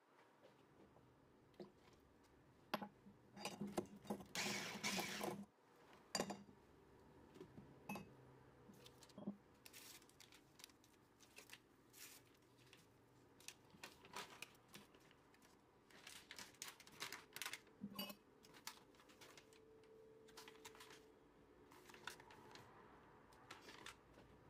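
Quiet handling sounds of dry baking ingredients being added by hand to a glass mixing bowl of beaten eggs: scattered light clicks and taps and short rustles as powders are poured in and a paper vanilla sachet is emptied. There is a longer rustling stretch about four to five seconds in.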